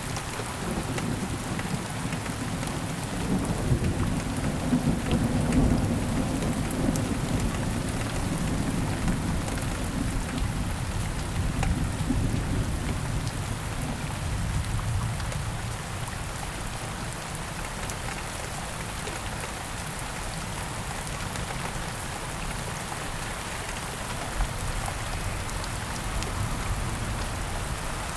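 Steady rain falling, with a long, low rumble of thunder that swells a couple of seconds in, is loudest around five seconds in, and fades out by about halfway.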